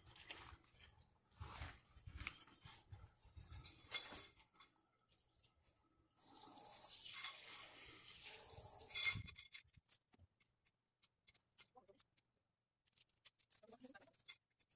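Quiet handling noises: scattered knocks and clicks, then a hissing rustle lasting about three seconds, like a mat or tarp being unfolded and laid out on the ground.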